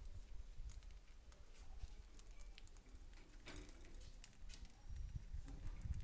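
Small birds making faint, scattered short chirps and ticks over a low rumble on the microphone.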